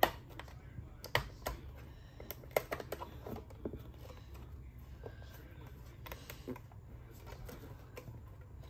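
Small plastic clicks and taps as a Cricket talking doll's cassette door is pressed and fitted onto its hinge prongs, bunched in the first three seconds and sparser after, over a low steady hum.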